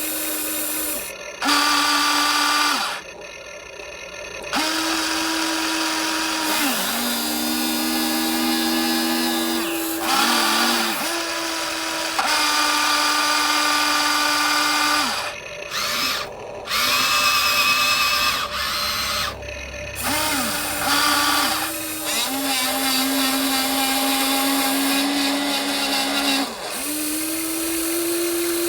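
Small electric motors of a metal RC excavator whining in repeated short runs, each starting and stopping with a quick slide in pitch, sometimes two running at once.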